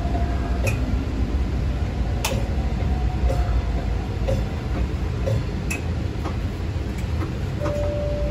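MBTA Type 9 light rail car rolling along a station platform, heard from the driver's cab: a steady low running rumble with irregular sharp clicks and ticks, and a faint steady whine near the end.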